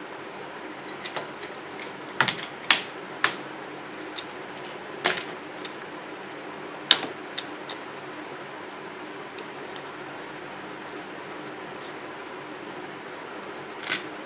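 Sharp clicks and taps of a small circuit board, wires and parts being handled on a worktable, scattered irregularly, the loudest a cluster about two to three seconds in and one about seven seconds in, over a steady hum.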